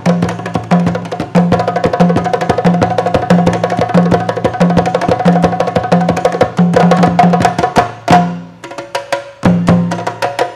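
Drum ensemble of djembes and other hand drums playing a fast rhythm: sharp slaps and tones over a steady low bass beat. The drumming drops out for a moment about eight seconds in, then comes back.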